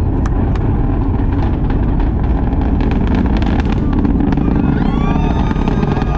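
Falcon 9 rocket's nine Merlin engines heard from afar during launch: a loud, steady low rumble full of sharp crackling. From about five seconds in, voices in the crowd whoop and cheer over it.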